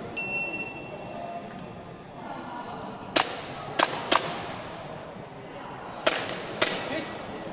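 Shot-timer start beep, one steady high tone lasting under a second, then airsoft pistol shots: three sharp cracks about three seconds in, followed by a pair near the end.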